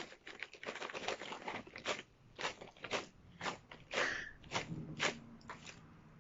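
Crunchy salted corn snack being bitten and chewed: a rapid, irregular series of crunches.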